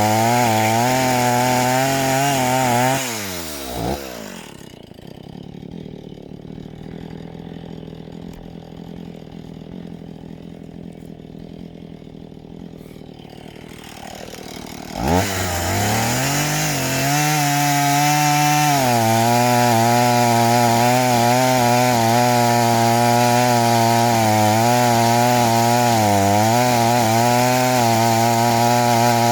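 Chainsaw cutting into a fresh log to make a Swedish fire, running at full throttle; about three seconds in the revs fall away and it idles for some twelve seconds, then it revs back up and cuts steadily again.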